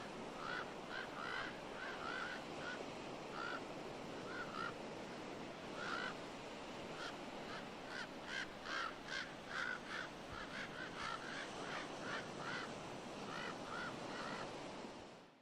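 Common ravens giving repeated short, harsh alarm calls, several a second at times and coming faster in the second half, over a steady background hiss. The calls mark a bobcat in the ravens' territory.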